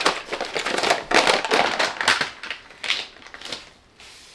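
Paper mold liner crinkling and rustling as it is peeled back from a loaf of cold process soap, busiest in the first couple of seconds and dying down near the end.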